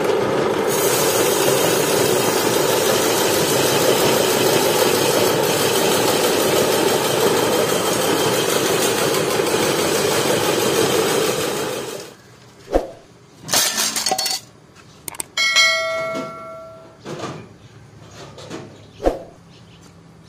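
A loud, steady machine whir that stops abruptly about twelve seconds in. It is followed by scattered knocks and clatters and one struck piece of metal ringing for about a second and a half.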